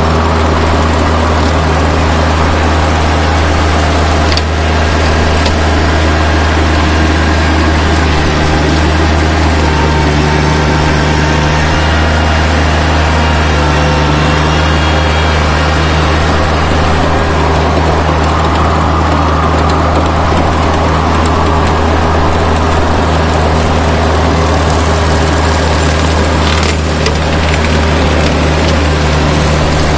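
Rural King RK24 subcompact tractor's engine running steadily while it pulls a rotary cutter through brush, with a couple of brief knocks.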